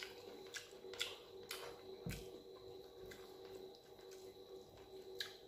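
Close-up eating sounds: chewing a mouthful of dal and rice with a few sharp wet mouth clicks, and the soft squish of fingers mixing rice and dal on the plate. A faint steady hum runs underneath.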